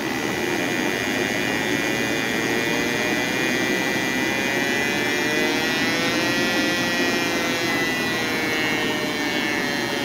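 Electronic combustible gas detector sounding a continuous alarm tone that wavers gently in pitch, signalling natural gas leaking at the pipe fitting between the furnace's gas control valve and the burners. It comes in abruptly at the start, over the steady whoosh of the running gas furnace.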